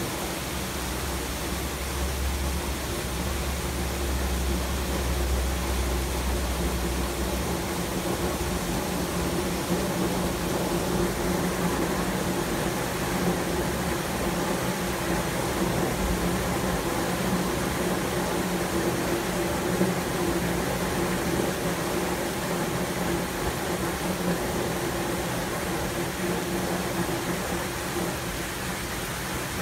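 Steady hiss of heavy rain with a low rumble of thunder that dies away about eight seconds in. A steady low hum sits under the rain.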